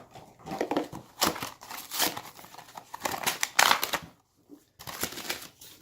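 Crinkling and rustling of toy blind-box packaging being handled, in irregular bursts with a brief pause a little after two thirds of the way through.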